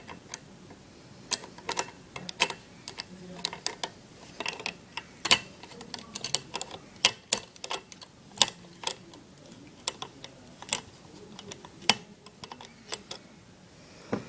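Irregular sharp clicks and taps of a screwdriver and small screws against a CPU fan and its mounting bracket as the fan is screwed down.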